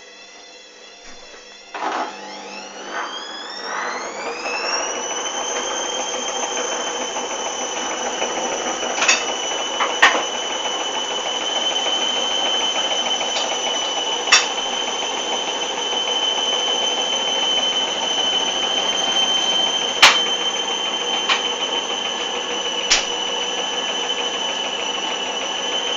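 Hoover Dynamic front-loading washing machine going into its first spin after the main wash: the motor whine rises for a few seconds about two seconds in, then holds at a steady high pitch as the drum spins. A few sharp clicks sound over it.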